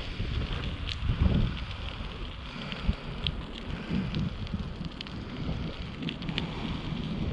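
Wind buffeting the microphone while riding a bicycle: an uneven low rumble in gusts with a steady hiss, and a few scattered small ticks and crackles.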